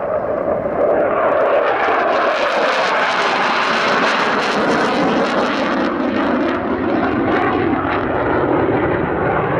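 Single-engine SAAB JAS-39C Gripen fighter jet, its Volvo RM12 turbofan loud and steady as it flies a display manoeuvre. The jet noise turns harsher and brighter from about two seconds in, eases back after about six seconds, and slides slowly down in pitch in the second half as the jet moves away.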